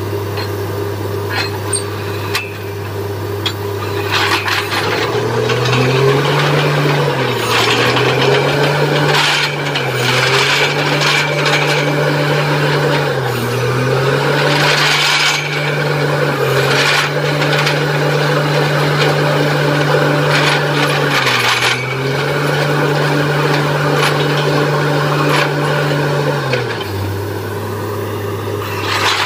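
Truck-mounted borewell drilling rig at work. Its engine runs loudly and steadily, rising in pitch about five seconds in, dipping briefly several times and dropping lower near the end, over a rough grinding, rasping noise from the drilling.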